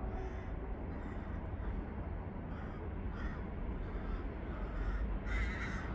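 A bird calling in several short calls, the longest and loudest near the end, over a steady low rumble.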